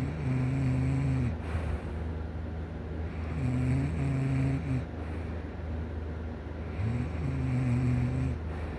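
A sleeping person snoring: three low, droning snores about three and a half seconds apart, each lasting about a second and a half, over a steady low hum.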